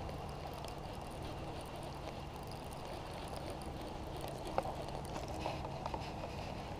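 Baitcasting reel being wound in by hand over a steady low rumble, with a few light clicks between about four and a half and six seconds in.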